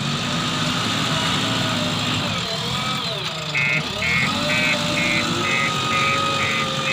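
Diesel engine of a JCB 3DX backhoe loader running steadily at work, with a whine that dips and rises in pitch as it works its hydraulics. About halfway through, a steady beeping starts, about two beeps a second.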